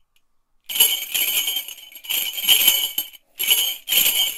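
Metallic jingling, shaken four times in a row, starting under a second in.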